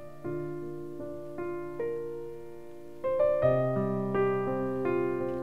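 Background piano music: single notes struck and left to fade, growing fuller with lower chords about three seconds in.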